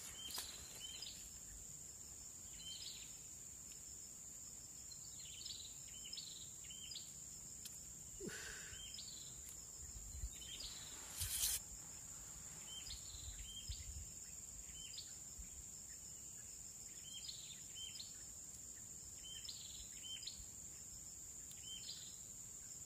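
A steady high-pitched insect drone, with short falling chirps repeating at irregular intervals. A brief hiss comes about eleven seconds in.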